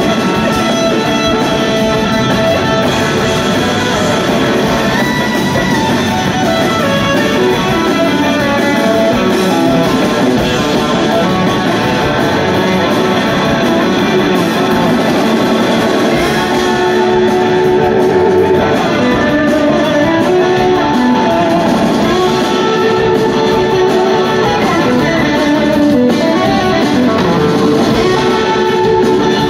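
A live rock band playing an instrumental passage, led by an electric guitar over a drum kit, recorded from the audience in a concert hall.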